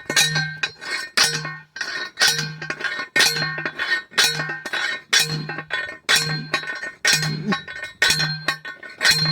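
Repeated metal-on-metal hammer blows, about one a second, each leaving a short ringing note.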